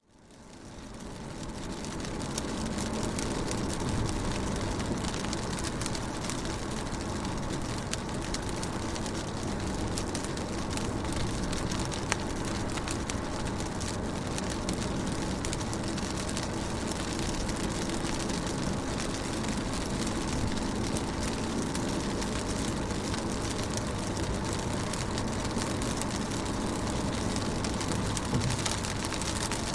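Rain falling steadily on a car's windows and body: a dense patter of many small drop ticks over a low hiss. It fades in from almost nothing over the first couple of seconds.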